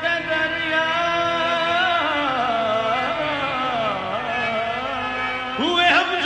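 Qawwali: a male lead voice holds a long sustained note over harmonium, then slides down in a wavering melismatic run, and a new sung phrase swoops up near the end.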